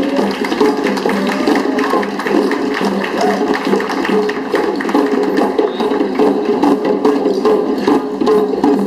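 Music with quick percussion over held notes, playing steadily.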